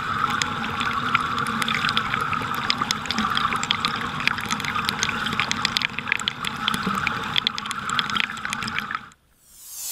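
Stream water splashing and trickling over rocks in a small cascade, heard close up: a steady rush with many small splashes. It cuts off suddenly about nine seconds in, and a swell of noise begins to build just before the end.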